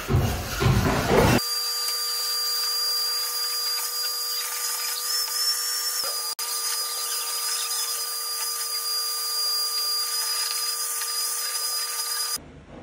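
Shop vacuum running steadily with a high whine as its hose nozzle sucks up concrete dust scraped off a tabletop. It is preceded by about a second of rough scraping and stops abruptly near the end.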